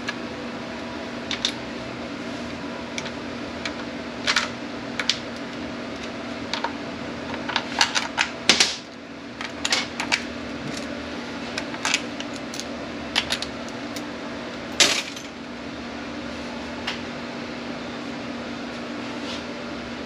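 Irregular metallic clinks and taps of hand tools and parts during the teardown of a 6T45E automatic transmission, with a cluster of quick clinks about eight seconds in and a sharp one near fifteen seconds. A steady hum runs underneath.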